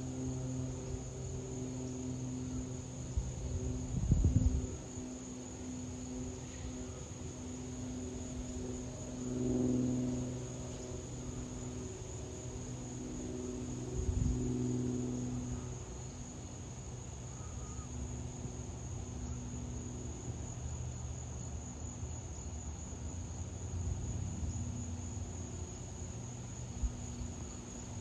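Distant Cessna 182B Skylane's six-cylinder piston engine and propeller droning steadily overhead, swelling slightly around ten and again around fifteen seconds in, over a steady high trill of crickets. A low thump about four seconds in is the loudest moment.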